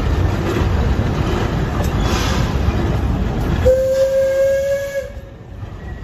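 Steam locomotive of the Alishan Forest Railway: a loud rushing noise of the running train, then a single steady steam-whistle blast of about a second and a half, a little past halfway through.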